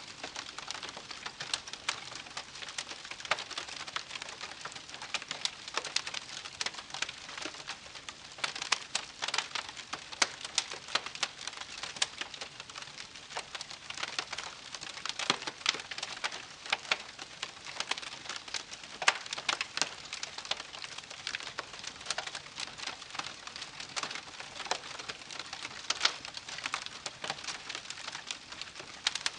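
Wood campfire crackling: dense, irregular sharp pops and snaps over a steady hiss of burning.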